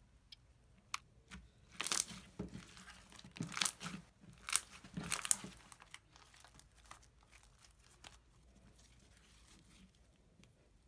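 Floam slime full of foam beads being stretched, pulled apart and squeezed by hand, giving crunchy crackling and sticky tearing sounds. The crackling is strongest in the first six seconds and then fades to a few faint ticks.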